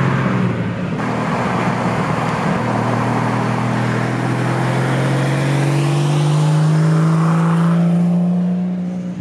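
A car engine pulling under steady acceleration, its pitch rising slowly over several seconds, over a steady hiss of road noise.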